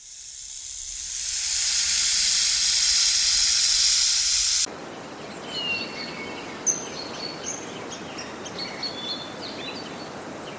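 A snake hissing: one long, loud hiss that builds over about two seconds and stops abruptly. It is followed by quieter outdoor ambience with scattered bird chirps.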